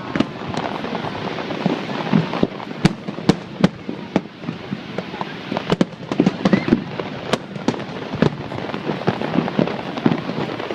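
Aerial fireworks bursting: many sharp bangs in quick, irregular succession, several a second, over a continuous rushing noise.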